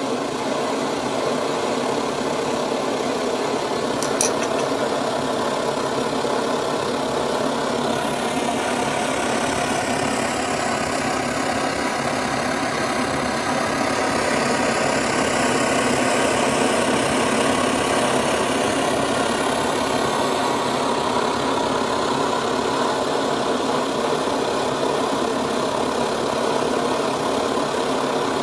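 Optimus 111B white-gas pressure stove's burner running full, a steady rushing sound with one short click about four seconds in. The burner is in very good working order, its fuel-pipe mesh cleared and seals renewed.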